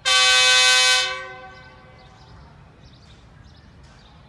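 Diesel locomotive horn sounding the departure whistle: one blast about a second long that dies away over the next second, signalling the express train is about to move off.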